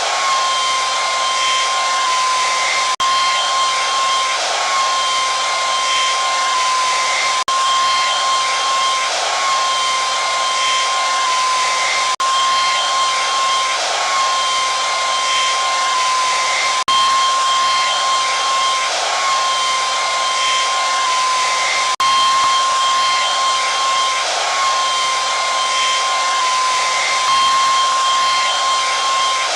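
Electric hair dryer running continuously: a steady rush of blown air with a high whine from the motor and fan.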